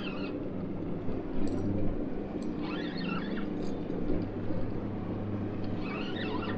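Suzuki outboard motor running steadily at a low hum. Faint, brief high squeaks come three times, about three seconds apart.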